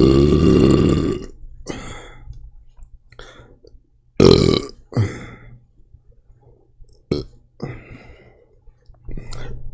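A man's loud, long soda burp ends about a second in, followed by a shorter loud burp about four seconds in, with fainter short sounds in between.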